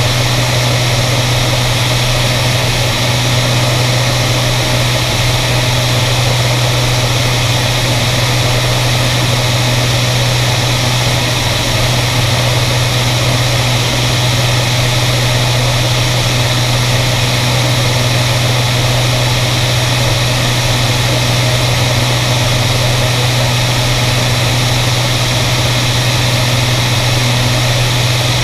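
Light aircraft's engine and propeller droning steadily in cruise, with a constant low hum under a heavy rush of slipstream wind.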